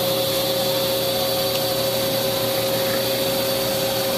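2008 Haas SL-20T CNC lathe running, a steady machine whine with a constant mid tone and a thin high tone that hold unchanged throughout.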